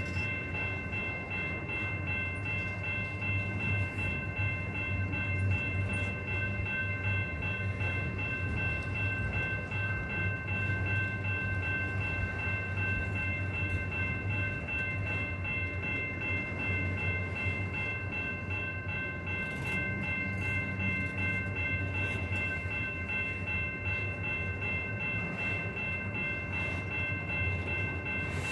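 Freight train rolling past: a steady low rumble of the cars with several constant high-pitched tones held over it.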